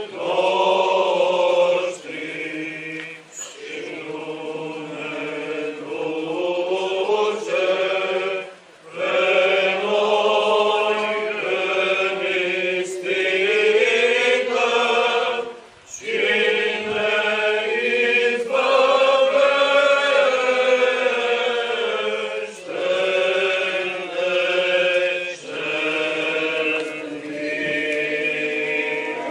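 Voices singing Orthodox liturgical chant, a slow sustained melody in long phrases broken by brief pauses.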